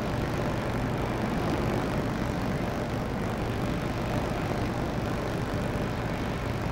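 Steady low drone of a tugboat's diesel engine running while it works alongside a ship.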